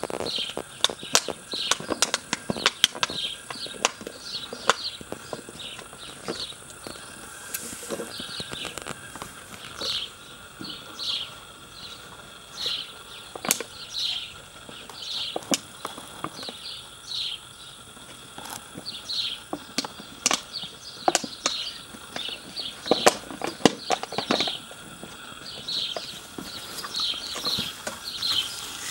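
Puppies playing on grass. Scattered sharp clicks and crinkles, with short high squeaks about once a second over a steady insect drone.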